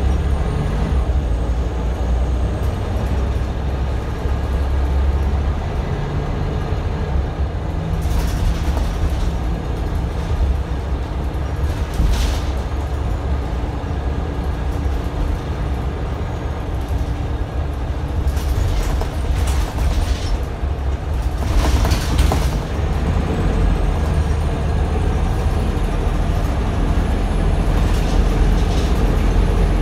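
Scania L94UB bus's five-cylinder diesel engine and ZF automatic driveline running, heard from inside the passenger saloon as a steady low drone with road noise. A few short bursts of hiss or rattle come through, the loudest about 12 and 22 seconds in.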